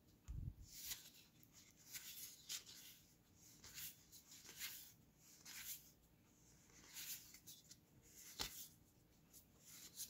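Magic: The Gathering cards sliding against each other as they are flipped one at a time through a pack: a faint swish every second or so, with a soft bump just after the start and a sharp click about eight seconds in.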